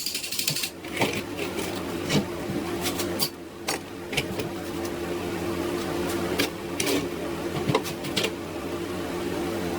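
A small electric motor running steadily, with sharp clicks at irregular moments over it.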